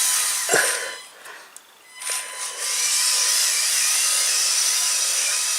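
LEGO Technic Control+ electric motors and plastic gearing whirring at high speed as the remote-control car drives. The whir breaks off for about a second, starting about a second in, then runs steady again. A short dropping sound comes about half a second in.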